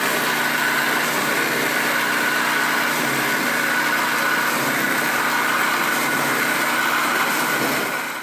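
Plasser & Theurer 09-16 CAT track tamping machine's diesel engine and hydraulics running steadily, with a high whine over the engine note, fading out near the end.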